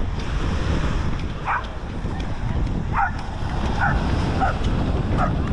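Wind buffeting the microphone over beach surf, with a handful of short, high calls about one and a half, three, four and five seconds in.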